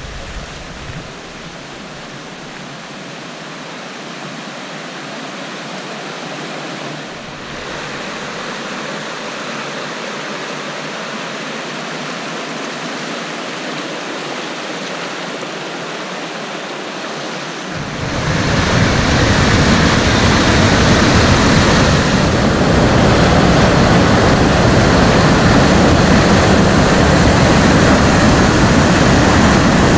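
River rapids and a waterfall, a steady rushing of water that slowly grows louder, then jumps much louder and deeper about two-thirds of the way through as the falls come close.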